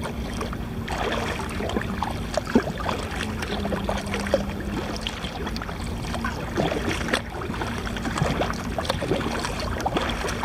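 Water lapping and splashing against a kayak's hull on the sea: a steady wash with many small irregular splashes and knocks.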